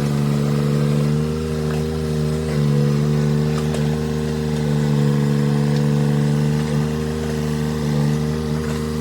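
Tata Hitachi Zaxis 33U mini excavator's diesel engine running steadily at working revs, its pitch dipping slightly now and then as it takes load, with a few faint knocks.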